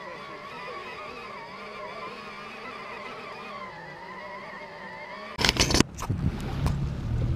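Faint music with a wavering tune. About five seconds in it gives way suddenly to loud wind buffeting the microphone on a moving boat, with the low steady running of its outboard motor underneath.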